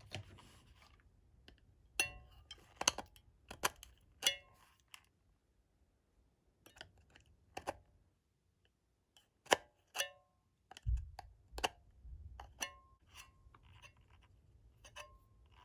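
Irregular sharp clicks and light clinks of small parts being handled and pressed into a Sharp EL-122 calculator's case, about a dozen in all, some with a short metallic ring, and a duller knock about two-thirds of the way through.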